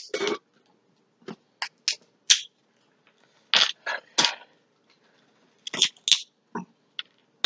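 Close-up eating sounds from someone eating cooked shrimp: short, irregular bursts of wet chewing and lip smacking, with the crackle of a shrimp shell being peeled near the end.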